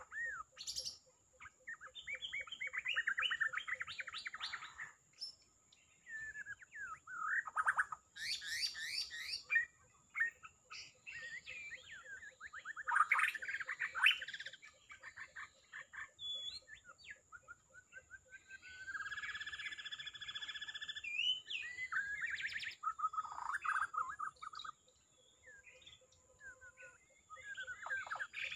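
White-rumped shama singing: bursts of varied, rich whistled phrases and fast trills, broken by short pauses, over a steady high-pitched whine.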